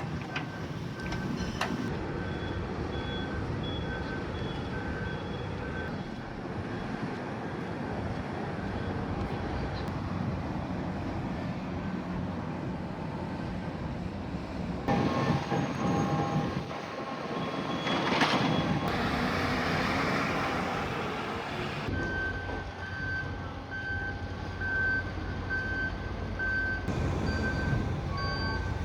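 Vehicle reversing alarms beeping at an even pace over running engines, with a louder stretch of rushing noise about halfway through.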